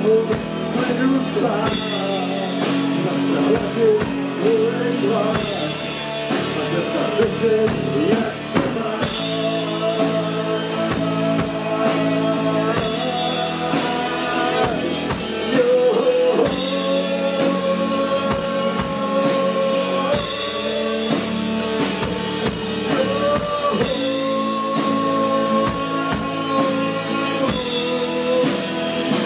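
Rock band playing live: electric guitars, bass and drums at a steady beat, with a lead melody of long held notes that bend up and down over the top, an instrumental break with no singing.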